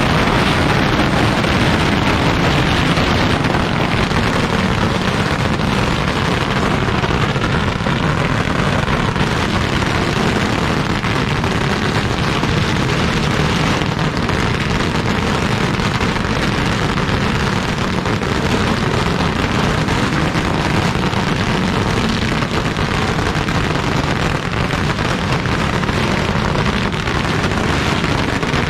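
A long string of Chinese firecrackers (a pagara) going off without a break, a dense, steady crackle of rapid bangs.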